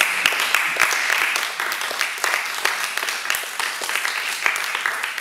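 Audience applauding: many people clapping at once, irregular and continuous.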